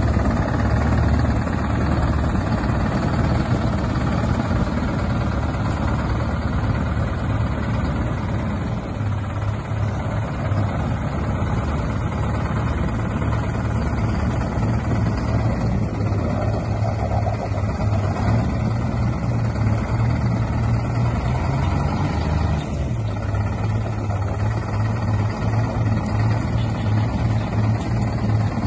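Heavy Ford L-series truck engine running steadily at low speed while the truck manoeuvres, its note shifting slightly a couple of times.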